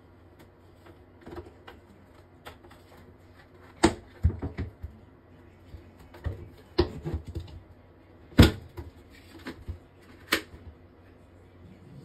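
Hard plastic clicks and knocks as a collapsible mini washing machine is handled: its carry handle lifted and its lid opened. The knocks are irregular, with three sharper ones standing out.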